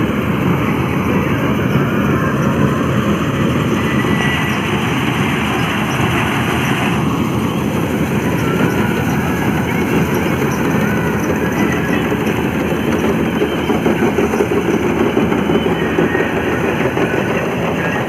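Combine harvester running while it cuts paddy: a steady, loud engine and machinery noise from the cutting reel and threshing works.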